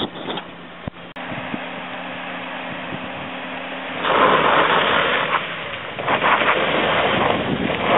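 Suzuki Grand Vitara SUV engine running steadily as it creeps down a steep dirt slope. About halfway through, loud wind noise on the microphone comes in and largely covers it.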